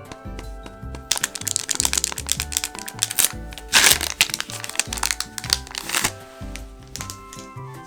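Foil Pokémon booster pack wrapper crinkling and crackling as it is handled, starting about a second in, loudest about four seconds in, and stopping about six seconds in. Background music with a steady beat plays underneath.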